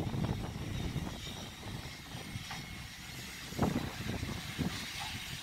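Ty42 steam locomotive running with a low rumble and a steady faint hiss, and one louder exhaust beat about three and a half seconds in.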